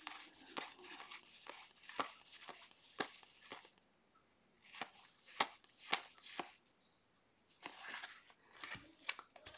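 1981 Topps football cards being flipped through by hand, one card at a time: a run of short, sharp cardboard flicks about twice a second, with brief pauses near the middle.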